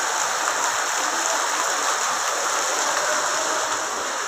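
Rain mixed with hail falling steadily on a road and paved ground, a dense, even hiss.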